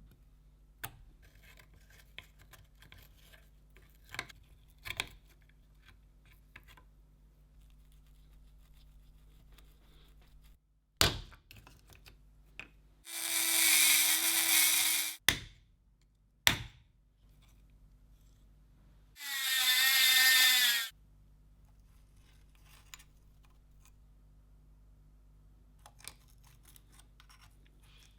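A small power tool runs twice in short bursts of about two seconds each, with scattered clicks and knocks of parts being handled before and between.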